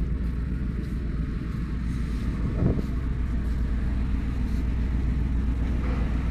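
Steady low rumble of wind buffeting the microphone on a ship's open deck, over the low, even hum of the ferry's engines, with a brief stronger gust a little under three seconds in.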